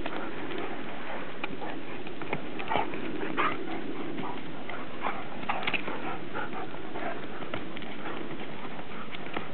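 A Standard Poodle and a Newfoundland play-wrestling: scuffling, with irregular short clicks and knocks of paws and nails. A few louder knocks come about three seconds in.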